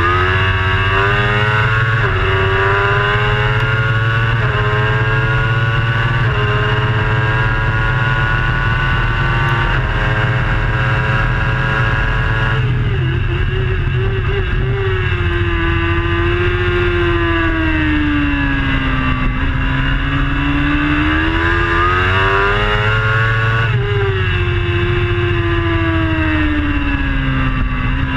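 Racing superbike engine heard from an onboard camera, climbing in pitch through several upshifts over the first dozen seconds, then falling and rising again in long sweeps through the corners. A steady low rush of wind noise runs under it.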